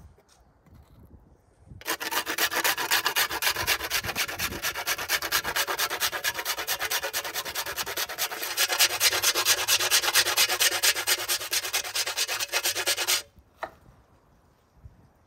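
A metal box grater being worked by hand: a firm block rubbed up and down it in rapid, even rasping strokes. The grating starts about two seconds in and stops a couple of seconds before the end.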